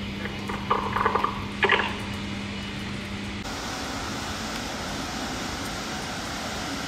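Passenger train passing close by: a steady rolling rush that starts suddenly about three and a half seconds in. Before it, a steady low hum with a few short, louder sounds about one and nearly two seconds in.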